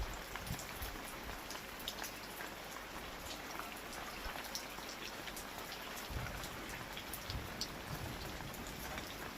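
Steady rain falling, a continuous hiss with many individual drops ticking on surfaces.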